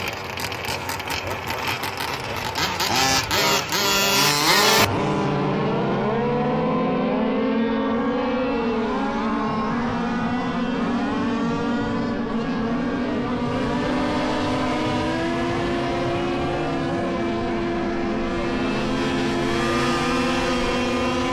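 Several gas-powered 1:5-scale RC cars racing, their small two-stroke engines buzzing at several pitches that rise and fall as they accelerate and back off. About five seconds in, the sound changes abruptly to a steadier drone of overlapping engines.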